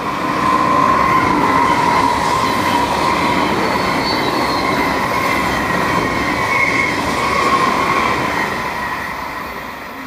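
A train passing close by on the rails, with a high squeal from the wheels. It grows loud about half a second in and fades away over the last couple of seconds.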